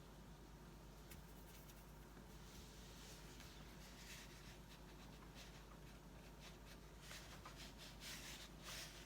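Faint swishes of a watercolour brush stroking across paper, a few strokes in the middle and a louder run near the end, with a few small ticks.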